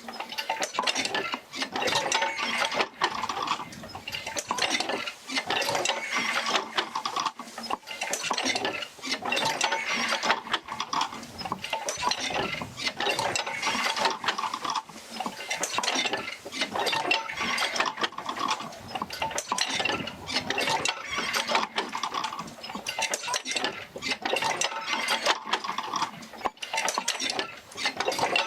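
Oil-field field wheel rocking back and forth as it distributes the stroke to its jerker lines: a continuous jumble of metallic clanks, clicks and knocks from the wheel and its line linkages, swelling and easing in a repeating rhythm with each stroke.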